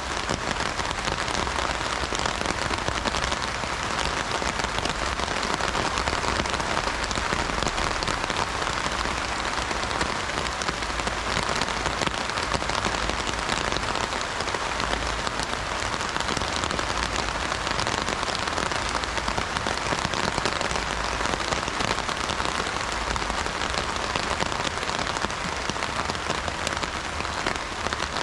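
Heavy rain drumming steadily on an umbrella canopy, a dense even patter of drops hitting the fabric.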